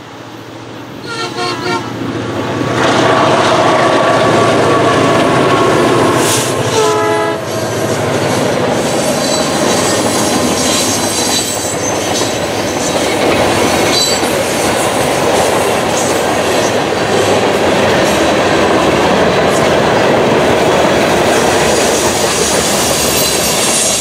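Freight train locomotive horn blowing in the first several seconds as the SOO Line lead unit approaches and passes. Then there is the steady rumble and clatter of covered hopper cars rolling past on the rails.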